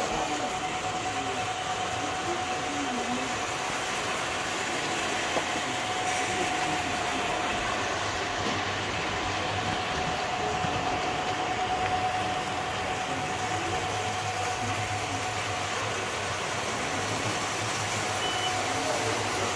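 Model freight train cars rolling past on the layout's track, a steady even rumble and hiss. A steady high electronic tone runs beneath it and weakens near the end.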